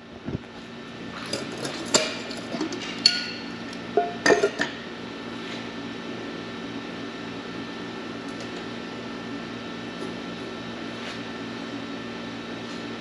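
Metal clinks and knocks as a paint spray gun is taken off its aluminium cup and set down on a metal workbench, a cluster of them in the first five seconds; after that only a steady low hum.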